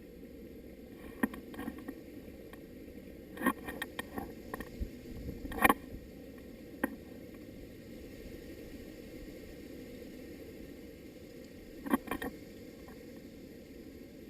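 Scattered sharp clicks and knocks, some in quick clusters, over a steady low rumble; the loudest comes about six seconds in, with another pair near the end.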